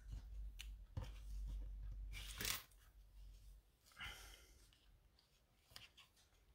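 Soft handling sounds of cardstock and twine as the twine is wrapped around a paper card: a few short rustles and light taps, with a low rumble through the first couple of seconds.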